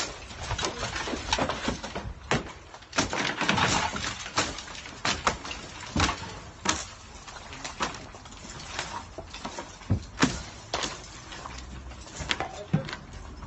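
Irregular knocks, bangs and clattering of demolition work, with a denser crash of breaking material about three seconds in.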